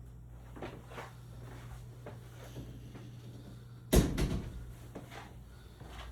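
A few light knocks and clicks, then one loud sharp knock about four seconds in followed by a short rattle of smaller knocks, like a drawer or cupboard being shut, over a steady low hum.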